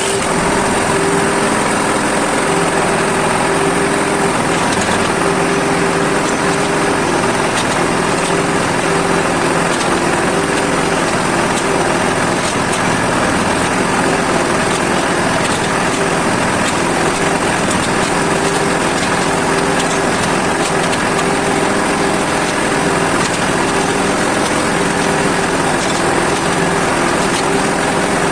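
Agrale 420 small tractor's engine running steadily with an even hum, with no revving or stalling.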